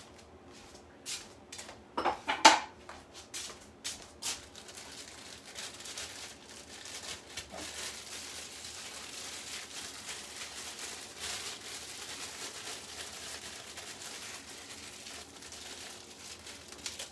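A few knocks and clatters of kitchen things handled on a counter, the loudest about two seconds in, then about ten seconds of plastic rustling as leftover bacon is packed into a freezer bag.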